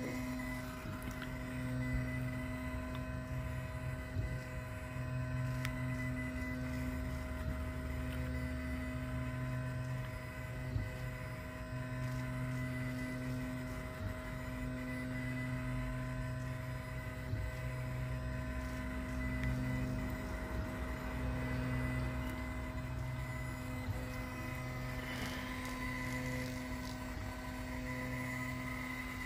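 Diode laser engraver running: the steady hum and whine of its fan and stepper motors, with a lower hum that comes and goes every second or two as the laser head sweeps back and forth in rows.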